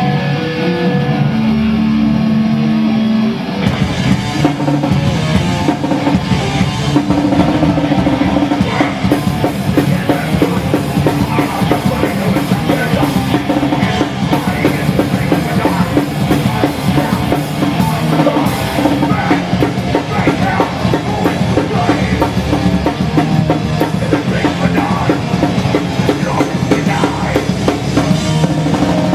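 Hardcore punk band playing live on loud distorted guitars, bass and drums. A note is held for the first three seconds or so, then the full band comes in with fast, driving drumming.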